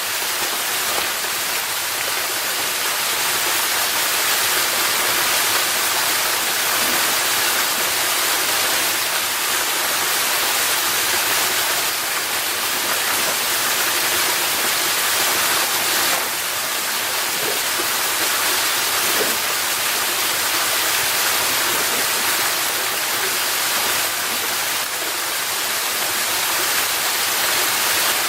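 Waterfall about 30 feet high, a steady loud rush of falling water with no break.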